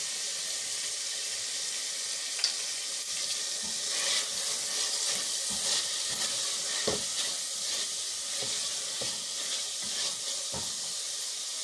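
Boneless chicken pieces sizzling steadily in oil with spices in an enamel pot while being stirred and fried. The silicone spatula scrapes the pot and knocks against it a few times.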